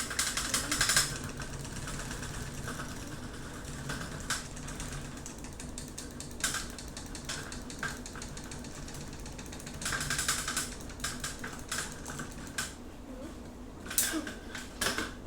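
Electric fan running with a low steady hum, broken by bursts of rapid clicking and rattling near the start, about six seconds in, about ten seconds in and near the end.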